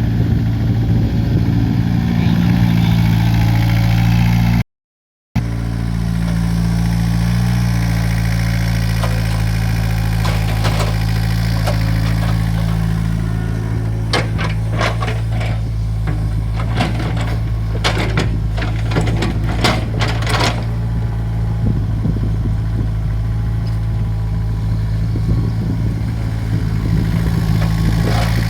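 Hydraulic excavator's diesel engine running steadily, with a run of sharp clanks and knocks partway through as the machine digs. The sound cuts out completely for a moment about five seconds in.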